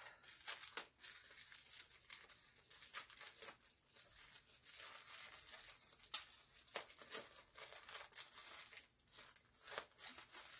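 Clear plastic gift wrapping being crinkled and torn open by hand: a faint run of irregular crackles and rustles.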